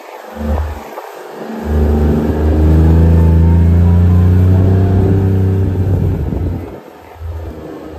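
Kawasaki side-by-side UTV's engine revving up and pulling under load while towing, holding a loud, steady note for about four seconds from about two seconds in, after a couple of short blips of throttle.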